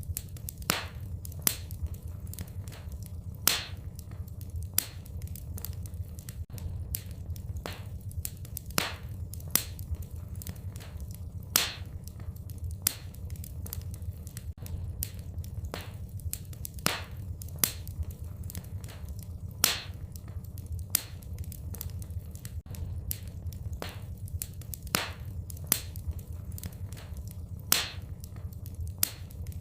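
Fireplace fire crackling: irregular sharp pops and snaps, a few of them much louder, over a steady low rumble of the flames.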